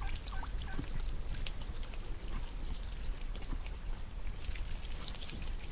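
Ducks dabbling their bills in mud: irregular wet sucking, slapping and clicking as the bills sift through the muck, over a faint steady high tone.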